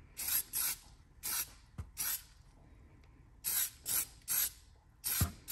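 Aerosol can of conformal coating spraying in short hissing bursts, about nine in all, some in quick pairs, as light coats are put on a circuit board.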